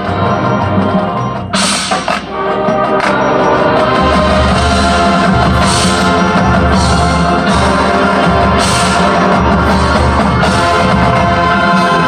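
Marching band playing at full volume, held chords over drums and percussion. About two seconds in it thins briefly, with a sharp crash, then the full band comes back in loud and steady.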